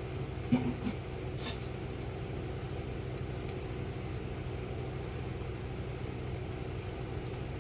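A steady low mechanical hum, with a short light clink about half a second in and a couple of faint clicks after it.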